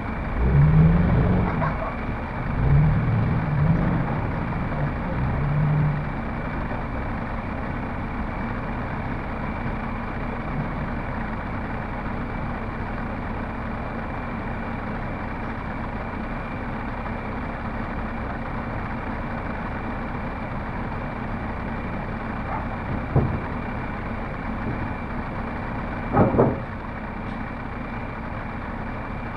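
Heavy diesel truck engine idling steadily, the Volvo FMX prime mover of the low loader. Several louder sounds rise over it in the first six seconds, and two short knocks come a few seconds apart near the end.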